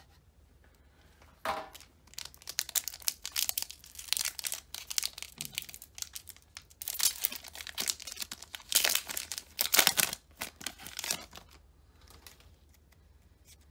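Foil wrapper of a Pokémon Vivid Voltage booster pack being torn open and crinkled by hand. It is a run of crackling from about a second and a half in until near the end, loudest about two-thirds of the way through.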